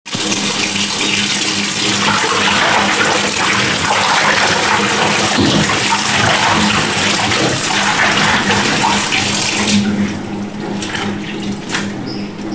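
Kitchen tap running into a stainless steel sink as leafy greens are rinsed in the stream, a steady rushing splash. About ten seconds in the tap is shut off, leaving brief splashes and drips as the wet leaves are handled in the sink.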